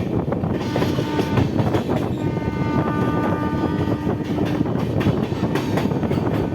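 Train horn sounding for about four seconds as a steady chord, over the clatter of wheels on rail joints and the rush of wind of a train running through a station without stopping.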